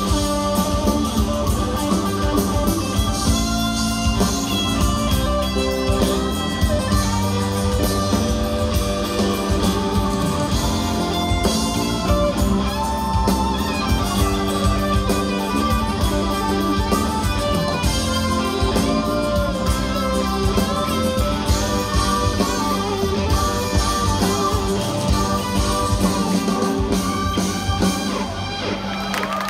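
Live band playing an instrumental passage with no singing: guitars to the fore over drums and keyboards.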